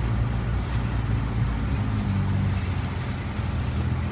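Car driving through a shallow puddle of floodwater: a steady engine hum with the swish of water under the tyres.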